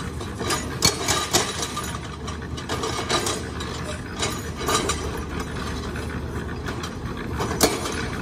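Construction-site machinery and handwork: a steady low engine rumble with irregular clinks and scrapes of shovels and stones, and one sharper knock near the end.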